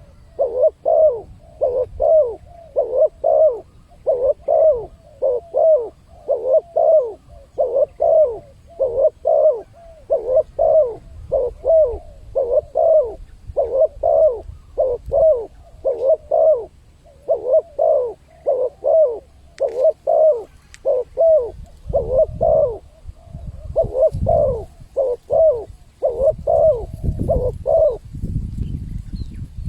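Spotted dove (tekukur) cooing: a long run of short coo phrases repeated in a steady rhythm, used as a lure call to draw wild doves. The calls stop near the end, and a low rumble comes up in the last few seconds.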